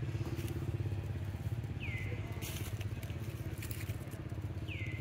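A steady low engine-like rumble with a fast even pulse, like a motor idling. Two high, whistle-like calls sound about two and five seconds in; each drops quickly in pitch and then holds for about a second.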